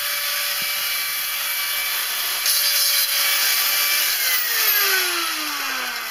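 Angle grinder with a cutting disc running on steel angle iron, growing louder and harsher about two and a half seconds in. Near the end it is switched off and its whine falls steadily in pitch as the disc spins down.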